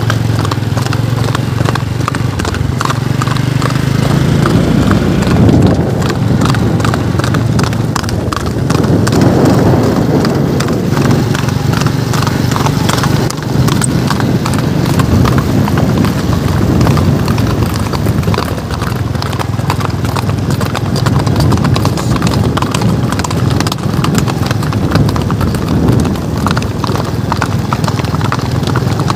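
Several horses' hooves clip-clopping at a walk on a concrete path, the hoofbeats overlapping in a dense, continuous clatter. A steady low rumble runs underneath.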